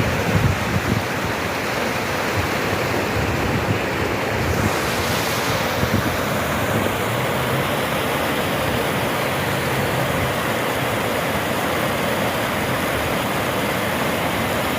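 Waterfall rushing steadily: a constant, loud wash of falling water.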